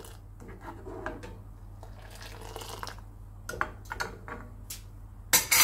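A steel ladle scooping simmering milk tea and pouring it back into a steel saucepan, with light clinks and taps of the ladle against the pan, several sharper knocks a little past halfway and a loud clatter near the end.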